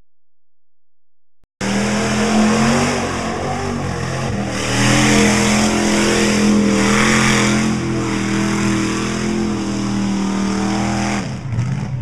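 Pickup truck engine held at high revs as the truck plows through a mud pit, its tires churning and throwing mud, with a loud spraying hiss over the engine. The sound starts abruptly about a second and a half in, after near silence, and the engine note drops away near the end.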